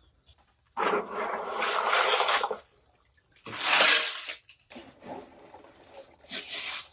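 Water splashing in two loud gushes, the first about two seconds long starting near a second in, the second shorter and brighter, then quieter splashing.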